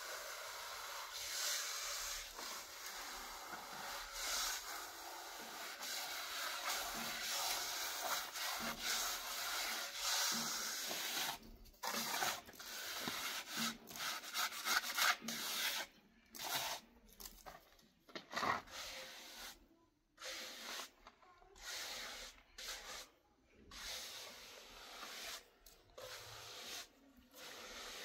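Rough scraping on a gritty surface, continuous for about the first eleven seconds, then in separate short strokes with brief gaps between them.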